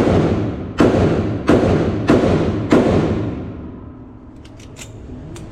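Five gunshots in quick succession, about two-thirds of a second apart, each echoing in an indoor shooting range. The echo fades out, and a few faint clicks follow near the end.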